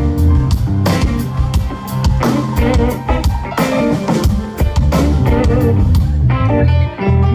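Live rock band playing a song at a sound check: drum kit hits on a steady beat over bass notes and guitar, with the cymbals dropping out near the end.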